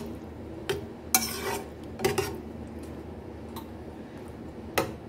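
Metal spoon stirring corned beef and beans in a nonstick pan. Several clinks and short scrapes of the spoon against the pan, the loudest clink near the end.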